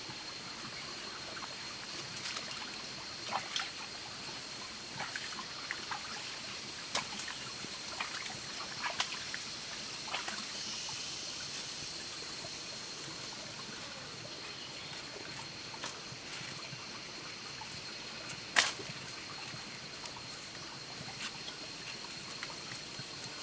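Steady trickling water, with scattered small clicks and one sharp louder click late on; a thin, steady high tone runs underneath throughout.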